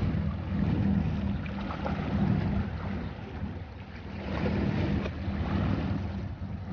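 A boat engine running steadily, with wind on the microphone.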